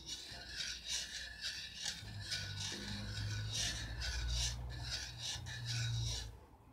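Rhythmic rasping strokes, about three a second, of a spoon scraping round a pan while stirring boiled sumac in water. A low hum joins about two seconds in, and the sound stops about six seconds in.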